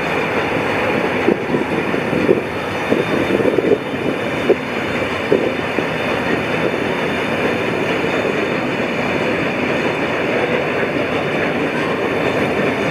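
A train running along the track with a steady rumble, and a run of irregular wheel clicks over the first few seconds.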